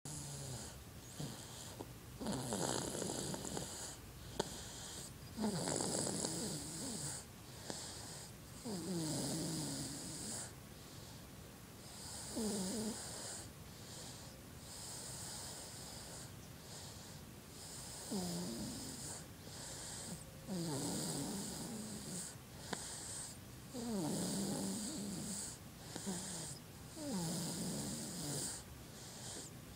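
A 7½-month-old baby snoring in his sleep: one snore roughly every three seconds, each dropping in pitch as it goes, with a longer pause about halfway through.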